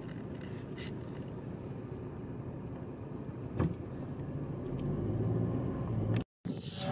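Road noise inside a moving car: a steady low rumble, with a single short knock about three and a half seconds in and the rumble growing louder near the end.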